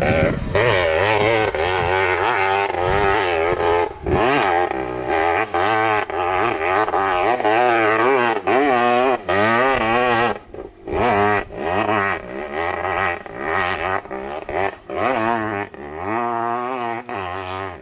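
Dirt bike engine revving hard on a steep hill climb, its pitch wavering rapidly up and down under the throttle. It drops off briefly about halfway, then picks up again.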